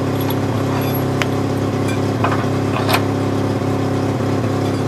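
An engine running steadily at a constant speed, with a few light clicks over it.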